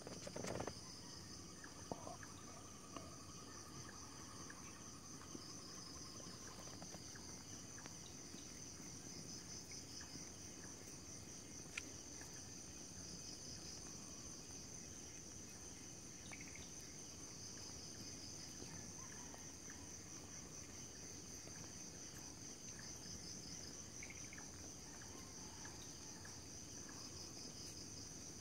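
Night insects, crickets among them, chirp steadily in a dense pulsing chorus. A second, lower trill joins for the first several seconds. There are a few soft knocks near the start.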